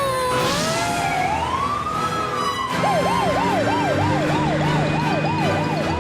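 Fire truck siren: a slow wail that falls and rises, switching about three seconds in to a fast yelp of about two and a half sweeps a second.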